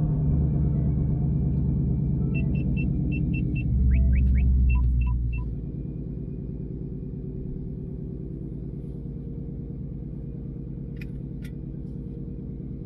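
ESS-supercharged S550 Mustang V8 idling steadily. About two seconds in comes a string of short electronic beeps, and the engine gets quieter about five seconds in.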